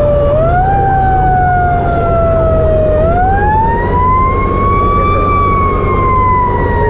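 Fire truck's mechanical siren heard from inside the cab, over the steady low rumble of the truck's engine. It winds up quickly twice, the second time higher, and coasts slowly down in pitch after each.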